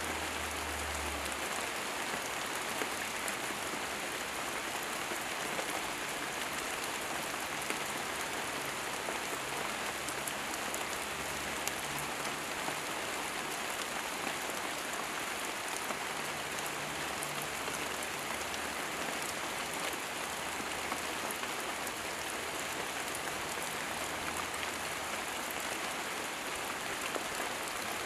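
Steady rain falling on wet garden foliage, a dense, even patter of drops.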